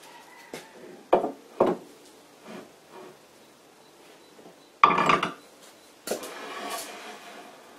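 Cast-iron lathe tailstock being worked loose and lifted off the bed. There are a couple of metal knocks about a second in, a heavy metal clunk near five seconds, then a scraping rub of metal on metal.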